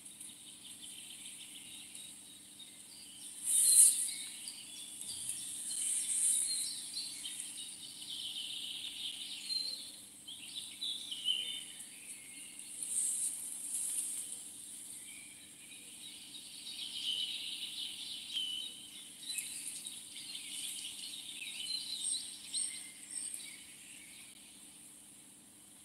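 Outdoor riverbank ambience: birds chirping and insects, with swelling rustles of someone walking through grass. A brief loud rustle or bump comes just under four seconds in.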